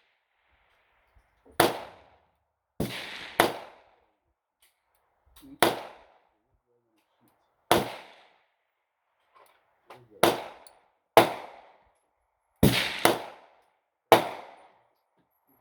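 Gunshots: about ten sharp reports at uneven spacing, some coming in quick pairs, each with a short echo trailing off.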